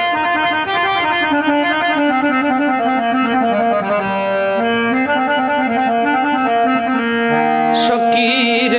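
A small keyboard plays a kirtan melody line in held, stepping notes as an instrumental interlude between verses. A man's singing voice comes back in near the end.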